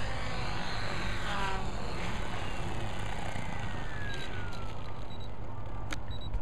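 Compass 6HV electric RC helicopter's motor and main rotor spooling down after landing: a thin whine falling steadily in pitch over a steady low rumble, with a few faint clicks near the end.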